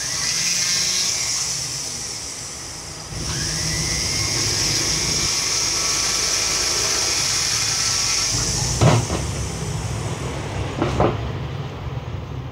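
Handheld flexible-shaft rotary tool running with a high whine as its bit works a clear acrylic amulet frame; it drops off about two seconds in, spins back up a second later, and stops about eight and a half seconds in. Two sharp knocks follow as the tool and frame are handled.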